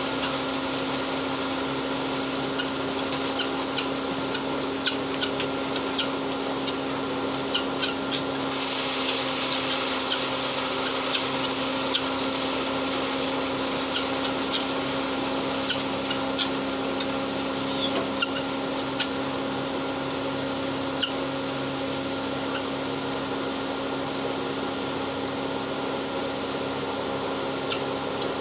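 Electric-motor-driven posho mill running steadily as it grinds maize into flour: a constant hum with a rush of noise and scattered small ticks. The rush grows louder for a couple of seconds about a third of the way through.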